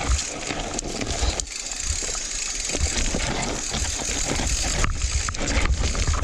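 Mountain bike riding down a loose, dry dirt trail: tyres crunching and skidding on loose dirt and the bike rattling over bumps, over a steady low rumble.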